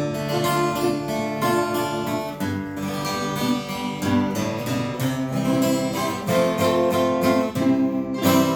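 Acoustic guitar playing a song's introduction: a steady run of plucked notes and chords.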